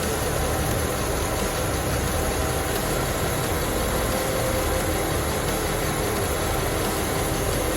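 Steady hum and drone of a 2006 Chevy Malibu running in drive with its front wheels spinning off the ground. The hum is the sign of a worn front wheel hub bearing, traced to the passenger-side hub assembly.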